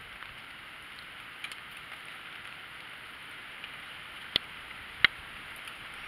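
Steady hiss of wet winter outdoor ambience, like light rain or melting snow. Two sharp clicks come late, about two-thirds of a second apart.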